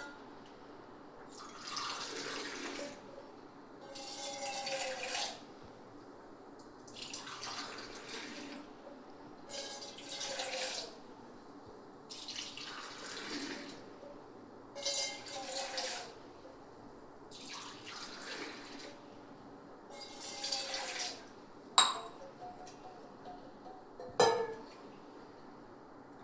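Water running and splashing into a vessel in short bursts, about every two to three seconds. Two sharp knocks come near the end.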